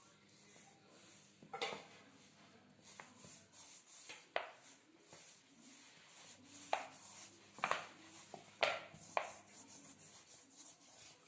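A hand mixing and kneading soft pizza dough of flour, milk, oil and yoghurt in a bowl: steady rubbing and squishing with a handful of irregular slaps and knocks.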